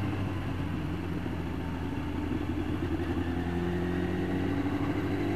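Yamaha YZF 1000cc inline-four motorcycle engine running steadily at road speed, heard from the rider's helmet camera. The engine note climbs a little near the end as the bike picks up.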